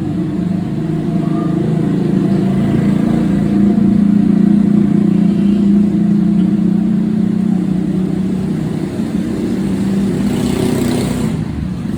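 A steady motor drone with a low pitched hum, loud throughout, with a brief hiss rising over it about ten seconds in.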